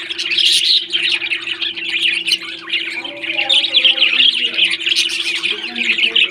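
Pet parrots chirping and chattering constantly, many short calls overlapping, over a steady low hum.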